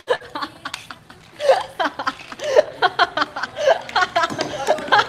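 Two young women laughing hard in bursts of giggles, quieter at first and louder and more continuous from about a second and a half in.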